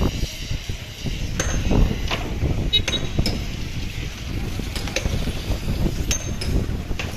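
Street ambience: a steady low rumble with scattered knocks and clicks and a few brief high chirps.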